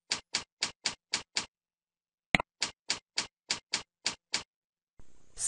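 Typing on a computer keyboard: two runs of evenly paced keystrokes, about four a second, each run led by a single click. This is a password being entered and then entered again to confirm it.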